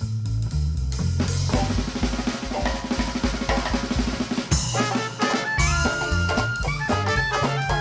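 Live traditional New Orleans jazz band: string bass and drum kit playing a break, the snare drum rattling out rapid strokes and rim shots, then the horns come back in with held notes about five seconds in.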